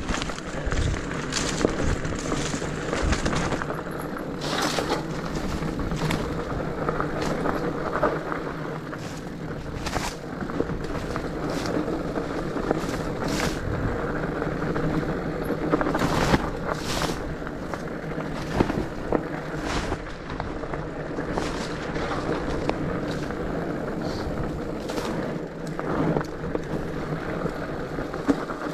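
Rigid fat bike riding down a rocky dirt trail: the fat tyres rolling over dirt and rock, with frequent sharp knocks and rattles as the unsuspended bike hits rocks.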